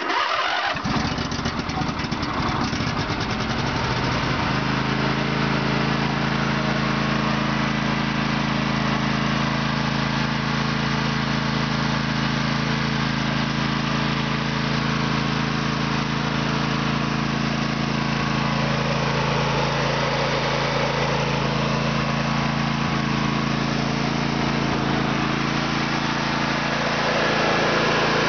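Briggs & Stratton 18.5 HP Intek V-twin on a Craftsman LT1000 riding mower, cold-started. It starts readily with its valves freshly adjusted, runs unevenly for the first few seconds, then settles into a steady run about four seconds in. It gets a little louder near the end.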